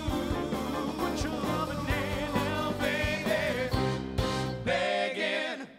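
Live band with four male voices singing close harmony, drums and bass driving the beat. About five seconds in the bass and drums drop out and the voices sing on briefly before the music stops.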